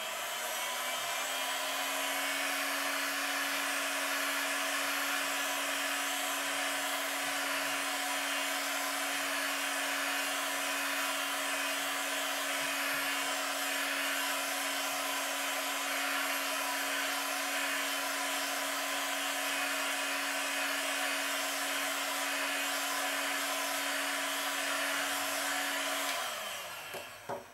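Hand-held hot-air dryer blowing steadily, drying a fresh coat of paint on a clear polycarbonate RC buggy body. Its motor hum rises as it spins up at the start and falls away as it is switched off near the end.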